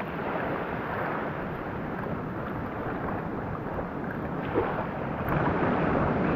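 Small sea waves washing onto a sandy beach, with wind rumbling on the microphone; the wash swells louder near the end.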